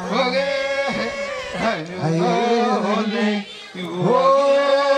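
Traditional Ogiek chant-like singing, voices holding long steady notes with short sliding changes of pitch, briefly dropping away about three and a half seconds in.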